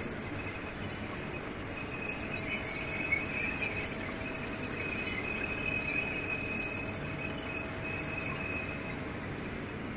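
Soap production line machinery running steadily: a constant hum and hiss with a faint, steady high-pitched whine over it.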